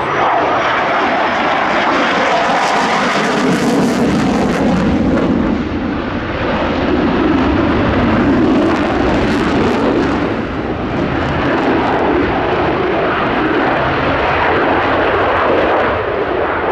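Single-engine F-16 fighter jet running loud and continuous, with a slow, slight drift in pitch.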